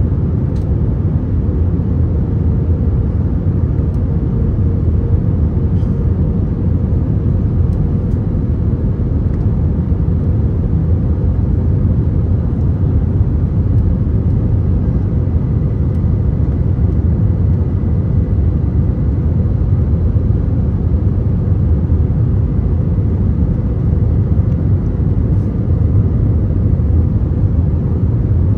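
Airbus A321 cabin noise: the engines and airflow heard from inside the cabin as a steady low rumble, with a faint thin whine above it.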